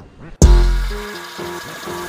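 Instrumental music beat that starts abruptly about half a second in, with deep bass and steady synth notes.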